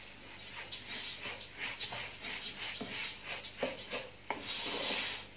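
A spoon stirring and turning cooked rice in a non-stick pot: the grains rustle and scrape, with scattered clicks and taps of the spoon against the pot. The rustling is strongest a little after four seconds in.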